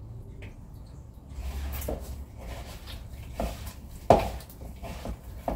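Kitchen handling while polvilho biscuit dough is mixed in a bowl: a few short, sharp knocks of kitchenware, the loudest about four seconds in and another near the end.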